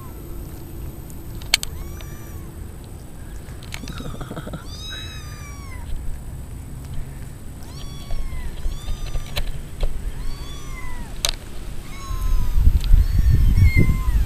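Several kittens mewing over and over, short high-pitched mews that rise and fall, often overlapping, with a few sharp clicks. A low rumbling noise comes in near the end.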